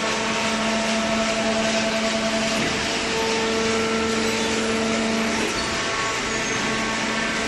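High-speed OCC cardboard baler running: steady machine noise with a droning hum that changes about five and a half seconds in.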